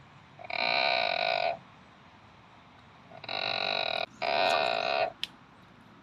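A strange, nasal, bleat-like call coming from inside a tree, sounding three times at an even pitch, each call about a second long, with a fourth starting at the very end.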